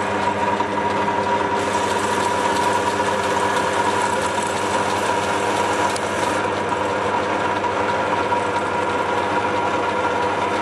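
Large drill press running, driving a Sieg X1 micro mill spindle through a flat belt and steel pulleys, with an empty fly cutter spinning: a steady machine hum with a steady whine. A higher hiss joins for about five seconds in the middle.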